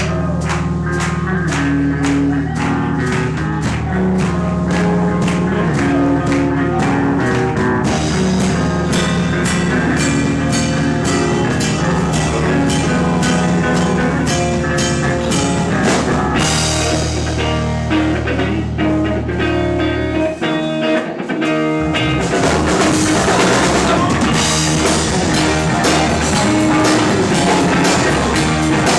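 Live rock band playing a song: a steady drumbeat with guitar over long held bass notes. About twenty seconds in, the low notes drop out for a moment, then the full band comes back in, denser.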